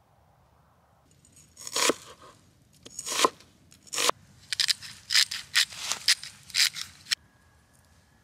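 Knife slicing through a red onion on a wooden cutting board: crisp, crunchy cuts, a few spaced strokes and then a quicker run of about ten, stopping abruptly.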